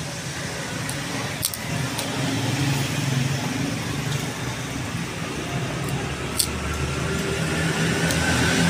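Steady low hum of a motor vehicle engine running close by, with a few sharp clicks, the loudest about two thirds of the way in.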